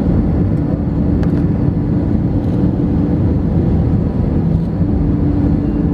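Cabin noise inside an Airbus A319 on its landing approach: the steady roar of the jet engine and rushing air beside the wing. A steady hum runs through it, fades in the middle and comes back near the end.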